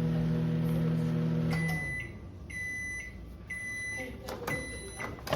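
A COMFEE 700 W countertop microwave running with a steady hum that stops about one and a half seconds in, followed by a series of high beeps signalling the end of the cooking cycle.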